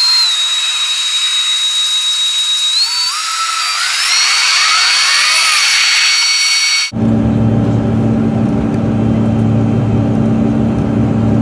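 Airliner jet engines heard from inside the cabin: a high-pitched turbine whine whose tones climb in pitch a few seconds in, as when the engines spool up. About seven seconds in it cuts to a lower, steady engine drone.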